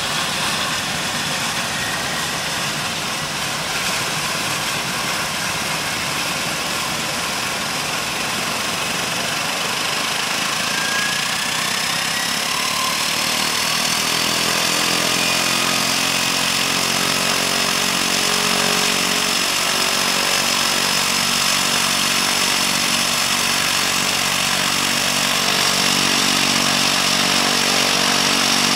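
Air Tractor AT-502's Pratt & Whitney PT6A turboprop starting up: a whine rising in pitch as the turbine spools up, then from about halfway the steady multi-toned running of the engine and turning propeller, growing slightly louder.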